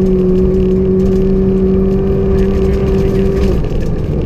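Rally car's engine heard from inside the cabin, held at high revs with a slowly rising pitch, its note dropping away about three and a half seconds in. A constant low rumble of tyres on the snowy road runs underneath.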